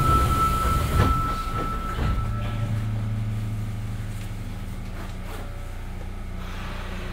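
Sendai Subway 1000N series train standing at the platform just before departure: a steady high beep for the first two or three seconds and knocks about one and two seconds in as the doors close, then a steady low hum from the train's equipment.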